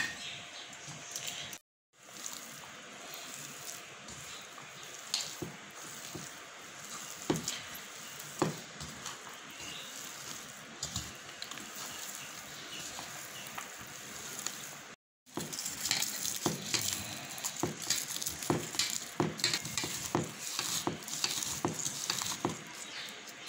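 A hand mashing and kneading boiled potato with shredded chicken and herbs in a ceramic bowl: soft squishing and crackling with many small scattered clicks. The sound cuts out briefly twice.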